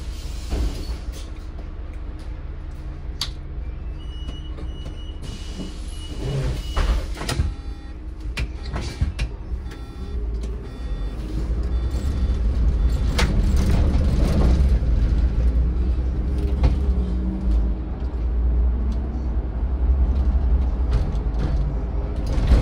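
City bus engine running with a steady low rumble heard from inside the bus. A high, steady beep sounds for about two seconds near the start, with knocks of the doors working around it. About halfway through, the engine and road noise grow louder as the bus moves under power.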